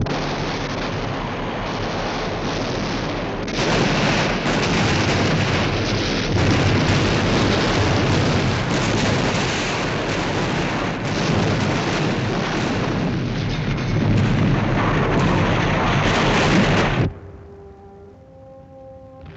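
War-film battle sound effects: a dense, continuous barrage of artillery explosions and gunfire, which cuts off suddenly about seventeen seconds in, leaving a few faint held tones.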